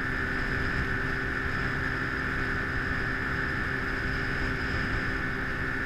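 Small outboard motor on a narrow jon boat running at a steady cruising speed: a constant drone over a rough low rumble of hull and water, with no change in pitch.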